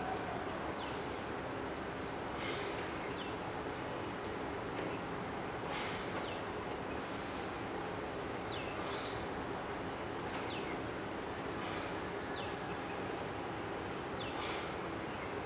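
Steady high-pitched insect drone, like crickets, with short falling chirps every two seconds or so over a soft, even background hiss.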